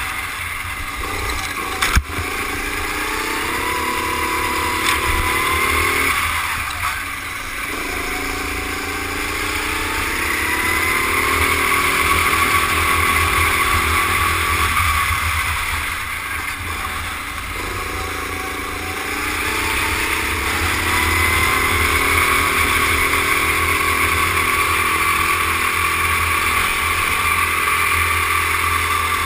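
Rental kart engine running at full throttle, heard onboard. Its pitch rises steadily along the straights and drops off twice, about six and fifteen seconds in, as the driver lifts for corners. There is a single sharp knock about two seconds in.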